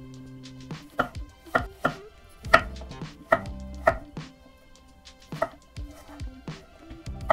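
Kitchen knife chopping on a cutting board: a dozen or so sharp, unevenly spaced strikes, with faint background music.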